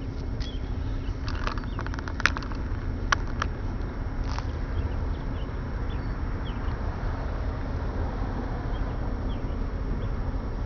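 Great Lakes freighter's engine running as she passes slowly: a low steady rumble with a faint steady hum. Two sharp clicks about two and three seconds in, and birds chirping faintly.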